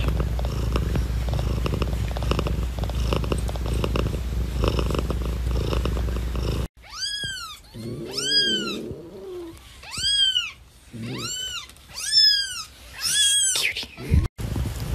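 British shorthair mother cat purring steadily. After a sudden cut about seven seconds in, a newborn kitten gives a series of short, high-pitched cries, each rising and falling in pitch.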